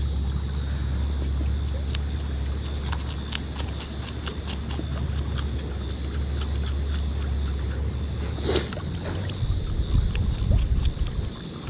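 A knife blade scraping scales off a small fish in short, scratchy strokes, heard over heavy wind rumble on the microphone that turns gusty near the end.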